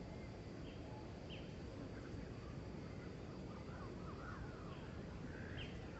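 Outdoor ambience: steady low background noise and a faint high hum, with scattered short high chirps and falling squeaks, several together about two seconds in and again near the end.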